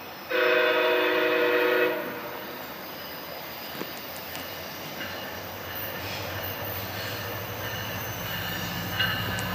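Diesel locomotive air horn of an approaching MARC commuter train sounds one chord of several tones for about a second and a half. It is followed by the steady rumble of the train, with the locomotive's low engine hum growing near the end.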